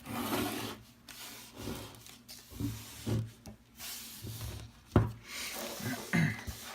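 Handling noise: rubbing and rustling as small parts and wires are moved about, with a sharp click about five seconds in.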